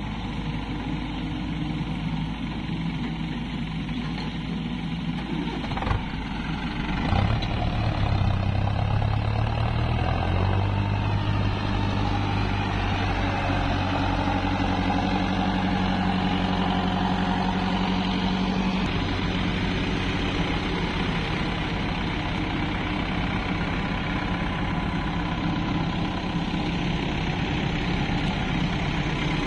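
Diesel tractor engines and a hydraulic excavator running steadily. About seven seconds in, a tractor's engine rises and holds under load as it pulls a trolley heaped with mud away through the mud. There is a single knock just before.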